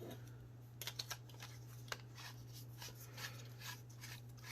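Faint scattered clicks and rubbing as a small plastic-and-metal flashlight multi-tool is handled, over a steady low hum.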